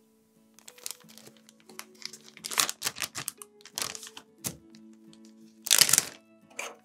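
Background music with held notes, over a string of short crinkling and rustling noises from hands handling things in the kitchen; the loudest comes near the end.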